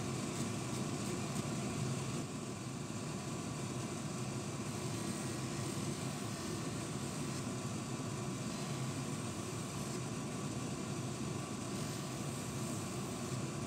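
Enclosed bench polishing machine running with a steady whir and hiss, its spindle motor and extraction drawing air through the hood while a watch part is worked against the spinning wheel.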